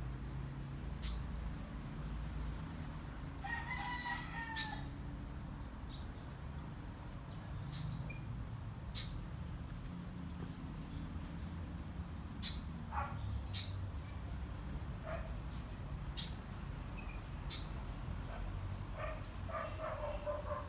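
A rooster crowing about four seconds in and again near the end, with short sharp chirps from other birds in between and a steady low rumble underneath.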